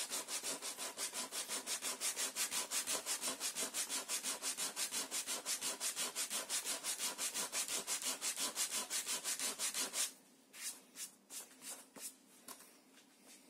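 Sandpaper rubbed by hand over the wooden planking of a model ship's hull, in quick, even back-and-forth strokes about five a second. The sanding stops about ten seconds in, followed by a few lighter rubs as a hand passes over the hull.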